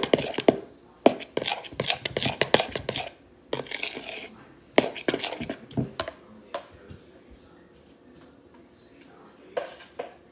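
A utensil clicking and scraping against a plastic mixing bowl as slime is stirred in quick strokes. The strokes are dense for about three seconds, then thin out and stop around seven seconds in, with a few more knocks near the end.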